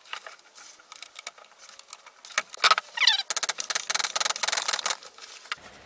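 Metal clicking and clattering as a cast iron cylinder casting is seated in the jaws of a lathe chuck and the jaws are adjusted. The clatter is densest in the second half, with a short falling squeak about three seconds in.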